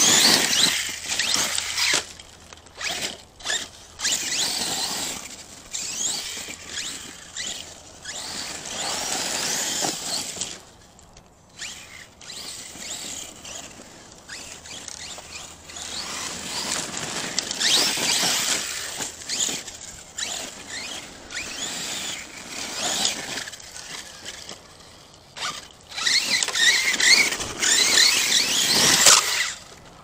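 ARRMA Kraton 6S RC truck's brushless electric motor whining in repeated throttle bursts, its pitch sliding up and down, with its tyres scrabbling over loose dirt and gravel. The loudest bursts come at the very start and again in a long run near the end.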